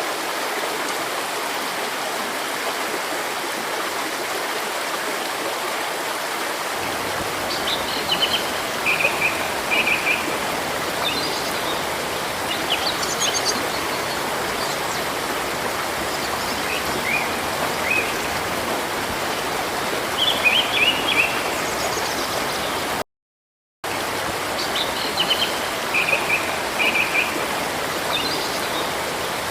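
Steady rushing of a river or stream, with small birds chirping in short high phrases from about a quarter of the way in. About three-quarters through the sound cuts out completely for under a second, then resumes.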